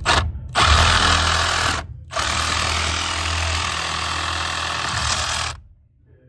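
A power tool running in short bursts, then for about three and a half seconds before it stops abruptly.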